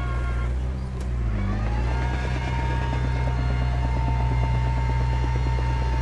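Komatsu D31P crawler bulldozer's diesel engine running steadily. It dips briefly about a second in, then rises in pitch to a higher steady speed and holds there.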